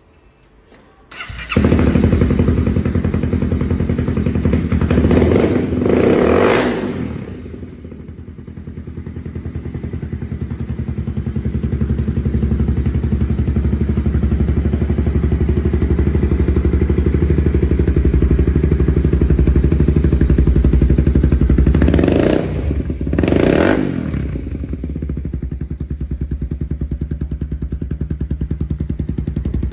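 2012 Honda CBR250R's single-cylinder engine starting up about a second in and then idling steadily. It is revved briefly around five seconds in and blipped twice more near twenty-two seconds before settling back to idle.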